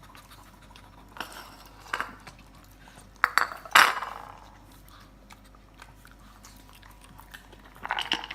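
Shih Tzus eating meatballs with chicken: scattered chewing and crunching, with a few sharper knocks, the loudest just under four seconds in.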